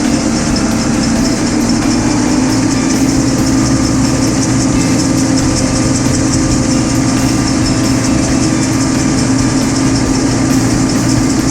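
Tractor engine and round baler running steadily together, a loud continuous machine drone with a constant hum.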